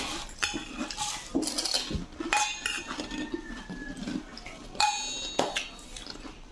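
Stainless-steel spoon and plates clinking: about half a dozen sharp metallic clinks, each with a short high ring.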